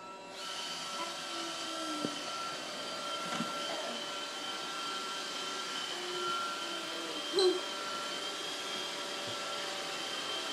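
Robot vacuum cleaner running: a steady motor hum with thin, high whining tones, and one brief louder sound about seven seconds in.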